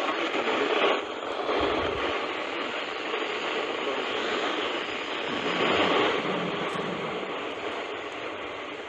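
Steady radio static hiss from a NOAA Weather Radio receiver on a poor signal, loud enough to drown out the synthesized voice reading the warning. The static swells about six seconds in.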